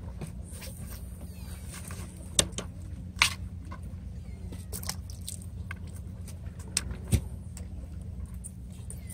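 A knife working fish on a plastic cutting board: soft scraping with three sharp knocks of the blade against the board, about two and a half, three and seven seconds in, over a steady low background rumble.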